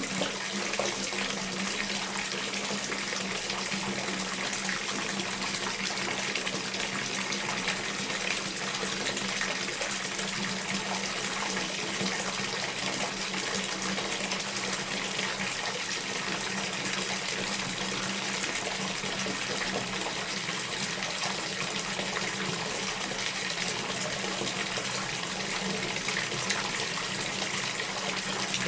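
Bathtub being filled from a running tap: a steady, even rush of water pouring into the tub.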